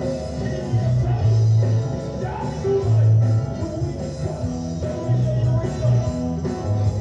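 A band playing rock music, with a repeating bass line under guitar.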